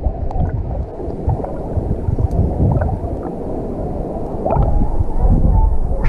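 Muffled underwater sound heard through a submerged camera: a dense, low rumble of moving water with little treble, and a few faint clicks.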